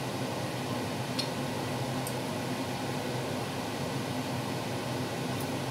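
Steady low mechanical hum with an even hiss, like a running kitchen fan or appliance, with a few faint light ticks about one and two seconds in and near the end.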